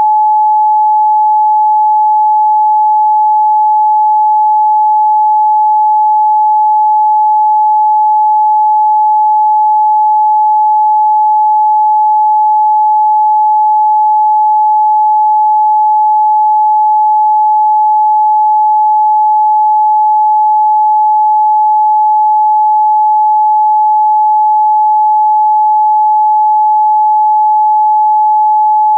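A pure 855 Hz sine tone held steady and unbroken at one pitch and level.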